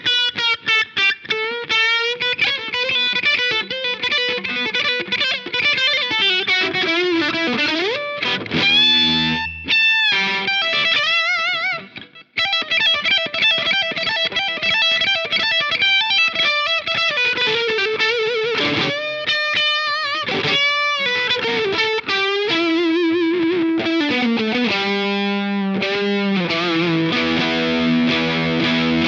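Electric guitar played through a Jeds Peds Wasteman overdrive pedal, a boosted Tube Screamer-style drive, giving a distorted tone. It plays melodic lead lines with bent and wavering notes, breaks off briefly about twelve seconds in, then moves to lower sustained notes near the end.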